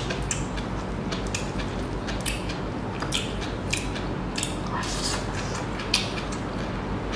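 Close-miked eating sounds: irregular soft mouth clicks and smacks of chewing, with the handling and peeling of food, over a steady hiss.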